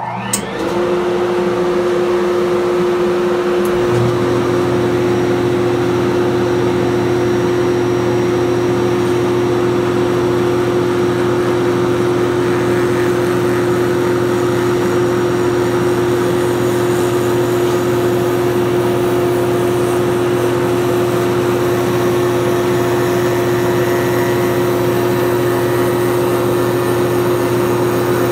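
Router table motor spinning a half-inch-shank down-cut spiral bit, together with its shop vacuum dust collection, starting up and then running loud and steady. A second, lower motor hum joins about four seconds in.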